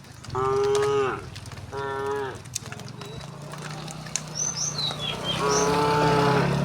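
Cattle mooing: two calls in quick succession, then a longer moo near the end, each dropping in pitch as it fades.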